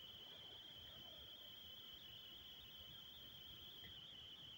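Near silence: room tone with a faint, steady high-pitched tone that runs unbroken.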